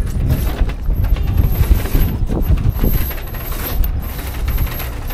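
Catamaran mainsail being lowered into its sail bag: sailcloth rustling and the sail slides and hardware clicking and rattling as the sail comes down the mast, over a steady low rumble.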